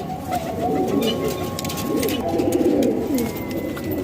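Several domestic pigeons cooing, their low calls rising and falling and overlapping one another without a break.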